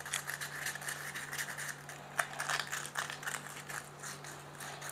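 Sandpaper rubbing on small metal washers from an autoclave heating element: faint, irregular scratching, over a steady low hum.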